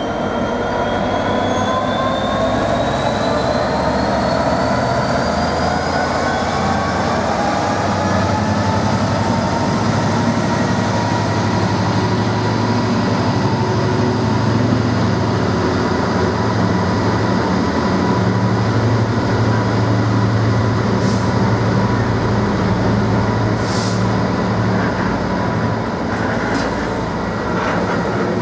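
A Class 66 diesel freight locomotive passes, followed by a long train of loaded container wagons rolling by with a steady heavy rumble. A rising whine sounds over the first several seconds, a thin steady tone from the wheels runs on, and a few sharp clicks come over the rail joints in the last part.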